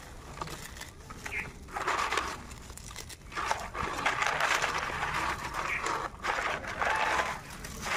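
Crisp deep-fried gram-flour noodles (jhuri bhaja) crunching and crackling as hands break them up in a paper-lined basket. The crackles are sparse at first and grow denser about three seconds in.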